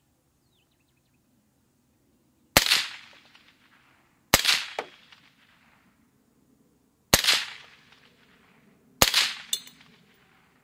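Four single rifle shots from a Stag 2TL AR-15 firing 55-grain ball ammunition, spaced unevenly about two seconds apart, each a sharp crack with a trailing echo.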